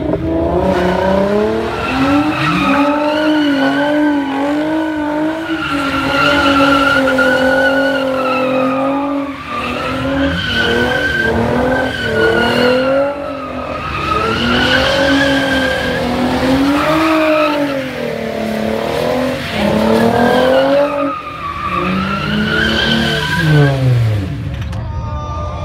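A car doing donuts: its engine is held at high revs that rise and fall over and over while the tyres screech as they spin and slide. Near the end the revs drop away.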